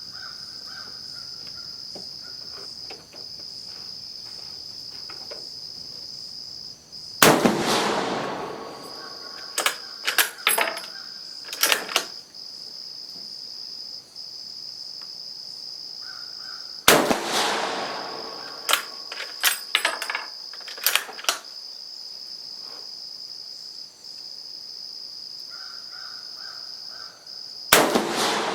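Three shots from a 7.35 mm Carcano M38 bolt-action short rifle, about ten seconds apart. After each shot comes a quick series of metallic clacks as the bolt is worked. A steady high insect trill runs under it all.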